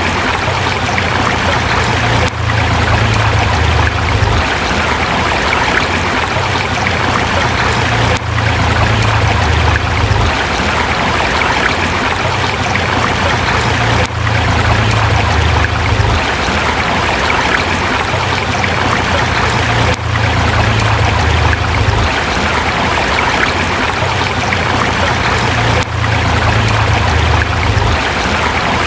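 Forest river rushing steadily over rocks, a dense, even sound of flowing water with a low rumble underneath, dipping briefly about every six seconds.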